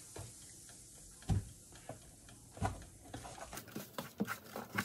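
Food frying with a faint steady sizzle, with a couple of knocks as utensils and food are handled, then a run of quick light clicks near the end.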